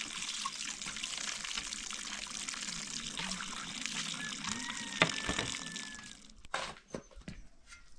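Water running from a tap and splashing as dishes and a tray are rinsed under it, with one sharp clack about five seconds in. About six seconds in the water sound ends and a few separate knocks follow.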